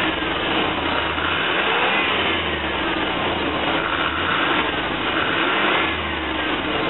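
A van's throttle-body-injected engine running with its speed rising and falling every second or two, just after fresh rebuilt injectors went in; the engine still runs rough and stalls, which the owner suspects is a fuel pressure problem.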